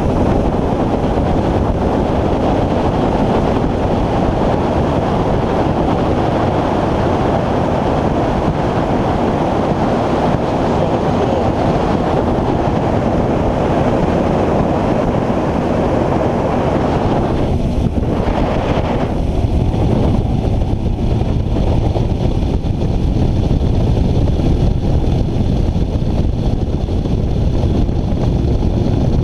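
Bass boat running across the lake under outboard power: steady wind noise on the microphone over the engine and rushing water. About eighteen seconds in the higher part of the noise drops away and a deeper rumble takes over.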